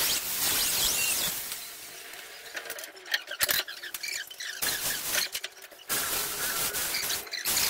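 High squeaking with scattered knocks and clicks from work on a wood-and-steel mezzanine deck; the sound drops out abruptly several times.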